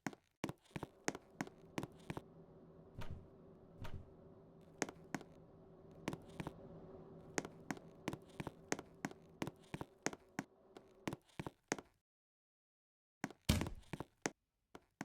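A ceiling fan running with a steady low motor hum and repeated sharp clicks, a few a second. The sound cuts off about twelve seconds in, then a louder knock and a few more clicks come near the end.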